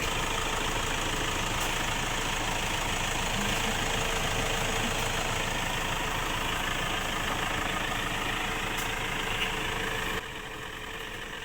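Motor vehicle engine running steadily at idle, an even mechanical drone. About ten seconds in it drops abruptly to a quieter steady hum.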